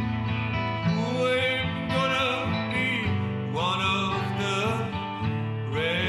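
Country-style acoustic guitar song, with a melody line that glides between notes over the guitar.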